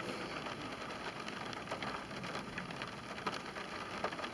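Rain falling on a car's windshield and body, heard from inside the car: a quiet, even hiss with a few scattered drop ticks.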